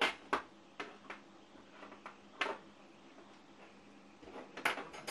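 Irregular light clicks and taps of small metal hand tools and wires being handled on a workbench, with a cluster of quicker taps near the end, over a faint steady hum.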